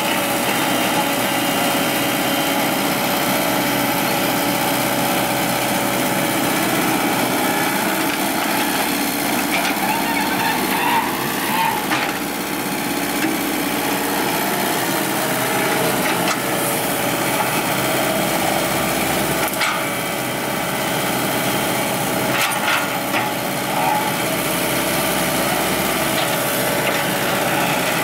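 Komatsu hydraulic excavator's engine running steadily while it grades soil, with a few short knocks from the work.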